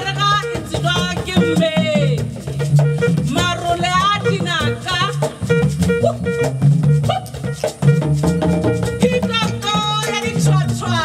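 Live band music: a woman's voice sings wavering, sliding runs over a pulsing bass line, a repeating pattern of short plucked notes and a shaker.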